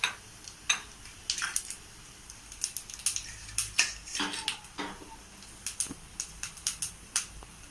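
Black pepper and cumin seeds crackling in hot oil in a small steel pan. Irregular sharp pops and spits, a few a second, as the spices fry for a tempering.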